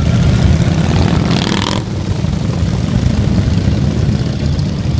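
Harley-Davidson V-twin motorcycles riding past, their engines running with a steady low rumble.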